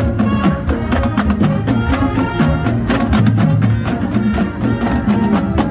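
Music with a steady drum beat and pitched instruments over it.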